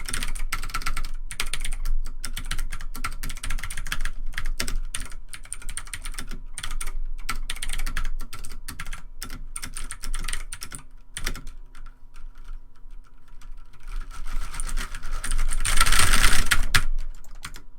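Rapid, irregular typing on a computer keyboard, the keystrokes growing louder and denser near the end.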